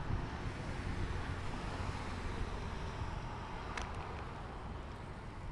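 A car passing on the road: tyre and engine noise swells and fades, over a low wind rumble on the microphone. A single sharp click sounds a little before the end.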